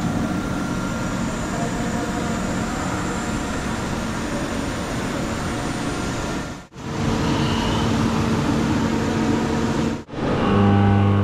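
Steady mechanical hum and whir of a CNC vertical machining center's motors, pump and fans running, with a few steady hum tones. It breaks off sharply twice, and a stronger, deeper hum comes in near the end.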